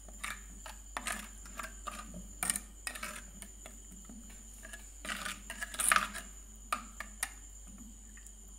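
Steel spoon scraping and clinking against an earthenware curry pot while stirring a thick ground-coconut and spice paste, in irregular strokes with a few louder knocks.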